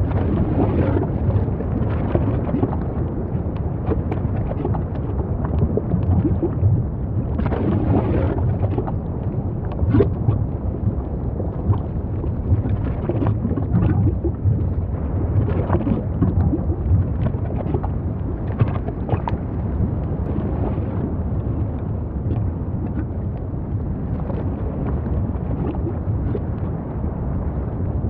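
Volcanic eruption sound effect: a steady deep rumble with irregular crackles and pops scattered through it.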